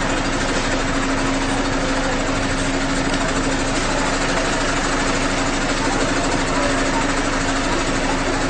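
Ambulance engine idling steadily: an even hum under a dense, constant noise.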